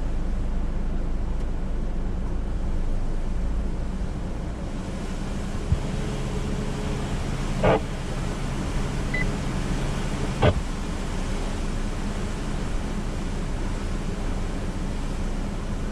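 Steady rushing noise of hurricane wind and rain with a low hum under it, broken by three short sharp clicks about six, eight and ten and a half seconds in.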